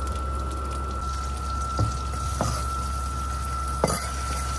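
Chorizo sizzling in a hot frying pan, a steady hiss over a constant low hum and a thin high whine. A few light knocks, the last near the end as a knife scrapes chicken off a cutting board into the pan.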